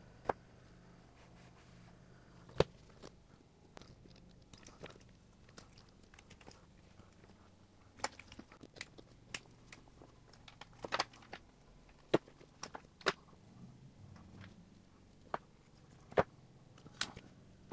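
Hand tools working the end of a rubber-jacketed 12/3-with-ground power cable: scattered sharp clicks, taps and crunches as a utility knife cuts the outer jacket and a wire stripper closes on the conductors. A few isolated clicks at first, then a busy run of them from about eight to thirteen seconds in, and a few more near the end.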